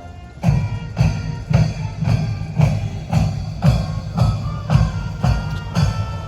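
Music with a heavy, steady beat: loud drum hits about twice a second, with pitched notes over them, starting about half a second in.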